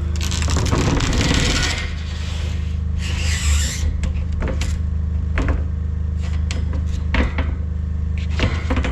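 A sheet of 12 mm plywood scraping and rubbing as it is worked into place: two long scrapes, then scattered knocks and taps. A steady low hum runs underneath.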